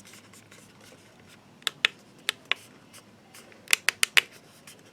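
Sharp, short clicks or taps: two pairs about half a second apart, then a quick run of four near the end, against a quiet room.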